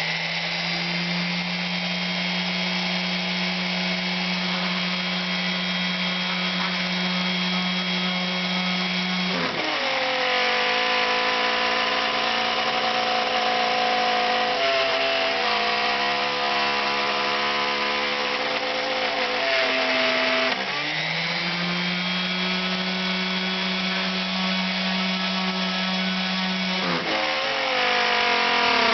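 FLA-100 CNC router cutting aluminium, with a high-speed spindle whine running continuously. The pitch steps down about a third of the way in, returns about two-thirds of the way in, and drops again near the end.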